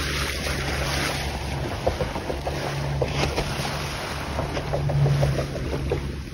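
Motorboat under way: a steady low engine drone, with wind buffeting the microphone and water rushing and splashing along the hull.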